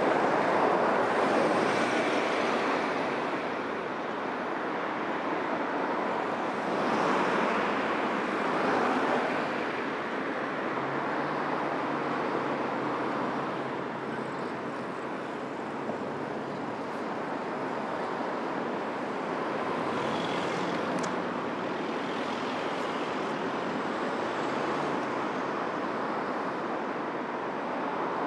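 Steady road and traffic noise while driving along city streets: tyre and engine noise of the car and of surrounding traffic, swelling louder a few times as vehicles pass, about a second in and again around seven and nine seconds.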